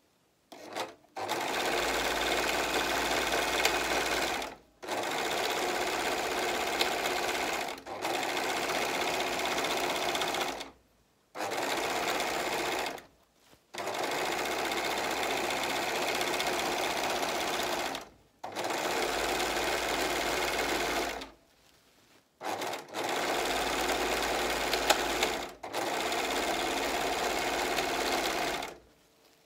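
Singer four-thread overlock serger stitching sequined fabric. It runs in about eight spurts of a few seconds each, with brief stops between them.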